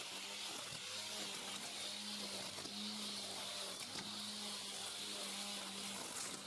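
Corded angle grinder rigged on a long pole as a grass trimmer, its motor running at a steady high speed with a constant whine while the spinning head cuts through grass.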